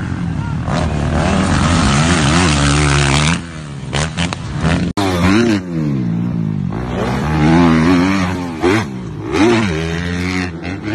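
Dirt bike engine revving hard, its pitch climbing and dropping again and again. About five seconds in the sound cuts abruptly to a second dirt bike, also revving up and down in quick swells.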